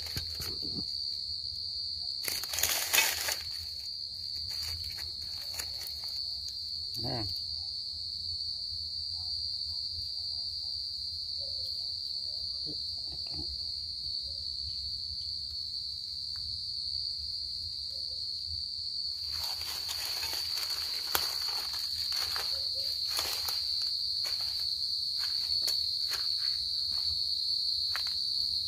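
Field cricket singing a steady, high, unbroken trill. Rustling through dry leaves and undergrowth breaks in briefly about two seconds in and again for a few seconds around twenty seconds in.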